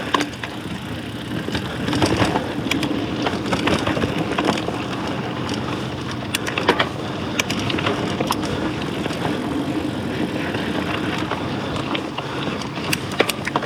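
Mountain bike rolling fast over dirt singletrack: a steady rush of tyre and ride noise, with frequent sharp clicks and rattles from the bike over bumps.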